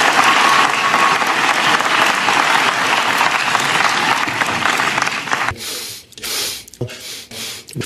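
Audience applauding, cut off abruptly about five and a half seconds in. Then a man's quick, repeated sniffs through the nose, several short ones in a row.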